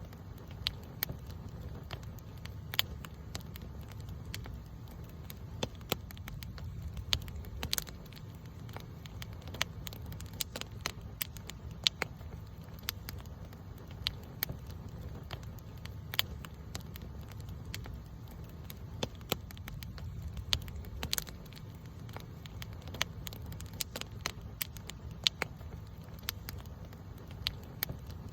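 Campfire burning with a steady low rumble of flame and frequent sharp, irregular crackles and pops from the burning wood.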